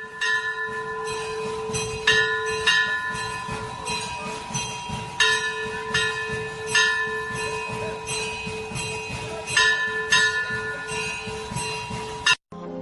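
Ghanta, a brass Hindu temple bell, rung continuously. Its clapper strikes about three times a second over a sustained ringing tone.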